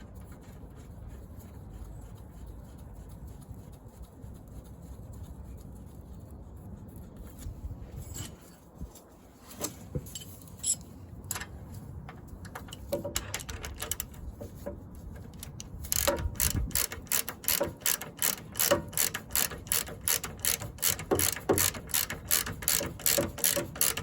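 Hand socket ratchet clicking as a bolt is done up: a few scattered clicks and knocks, then about two-thirds in a fast, even run of ratchet clicks.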